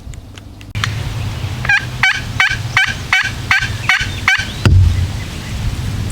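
Turkey gobble: a loud run of about ten quick rattling notes over some four seconds, ending in a low thump.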